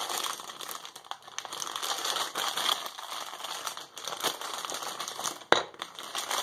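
Clear plastic bag crinkling and crackling as it is handled and pulled open, with one sharp click about five and a half seconds in.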